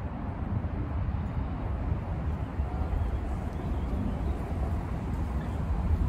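Wind buffeting the microphone: a steady, uneven low rumble.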